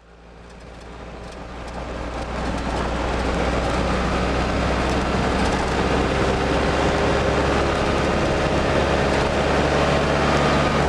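A car on the move: steady engine and road noise with a low rumble, fading in over the first two seconds, then holding level.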